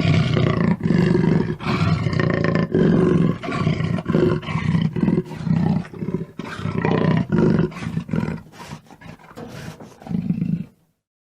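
Jaguar roaring and growling: a long run of deep, rasping calls repeated roughly once or twice a second, fading somewhat near the end before one last strong call, then cutting off suddenly.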